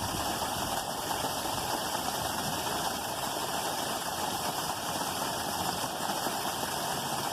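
Steady rushing of creek water, an even noise that holds at the same level throughout.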